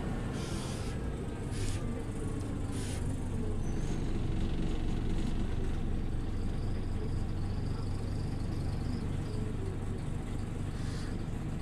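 Scania OmniLink CL94UB city bus running, heard on board as a steady low engine drone. Short hisses come three times in the first three seconds and once more near the end.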